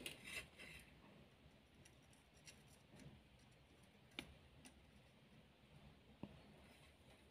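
Near silence, with a few faint clicks and taps as wires and a soldering iron are handled during soldering; the clearest come about four and six seconds in.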